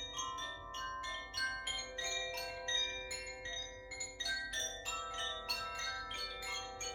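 Makino-style healing chimes struck in quick succession, several strikes a second. Their clear ringing notes overlap and sustain into one another.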